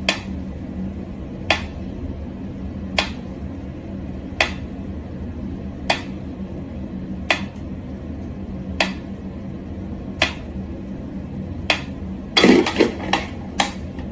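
Mechanical pendulum metronome ticking slowly and evenly, about one tick every second and a half. A quick run of louder knocks and clatter comes near the end.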